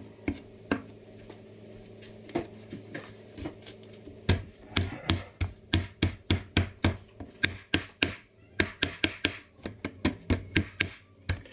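Knife scraping scales off a whole red fish on a wooden cutting board: sharp scraping strokes, a few scattered at first, then a quick steady run of about three a second from about four seconds in.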